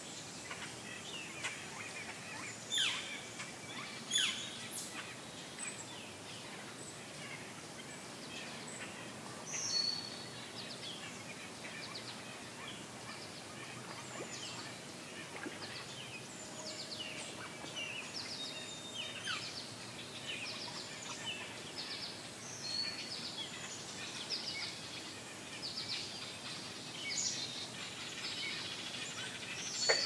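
Several wild songbirds chirping and calling over a steady background hiss: a few sharp downward-sweeping calls near the start, then a busier run of short chirps and rapid ticking trills through the second half.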